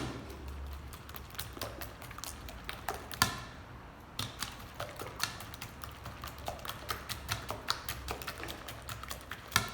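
A whisk beating eggs and sugar in a bowl, clicking against the bowl in quick, irregular taps, with one louder knock about three seconds in.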